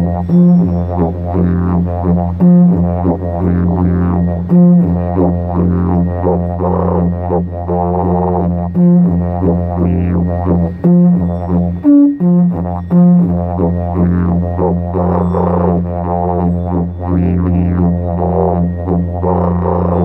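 Didgeridoo playing a continuous low drone, its upper overtones shifting and pulsing as the player shapes the sound, with short breaks in the drone every few seconds.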